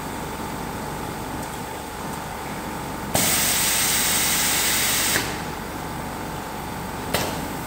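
Pneumatic bottle filling and capping machine venting compressed air: a loud hiss starts with a click about three seconds in, holds for about two seconds and cuts off sharply. A shorter puff of air comes near the end, over a steady faint hum.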